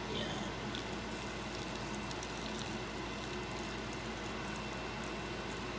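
Steady kitchen cooking noise: a constant hum and hiss with faint crackles, from pans cooking on a lit gas stove.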